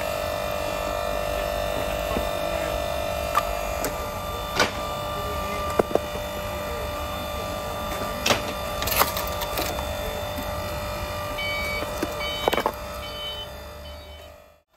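The 240V electric motor and hydraulic pump of a log splitter running with a steady hum, one of its tones dropping away about four seconds in. Several sharp knocks and clatters of split wood pieces being handled sound over it, and it all fades out near the end.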